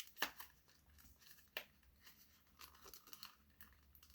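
Foil wrapper of a Pokémon booster pack crinkling and tearing in faint, scattered sharp crackles as it is pulled at, the pack being hard to open.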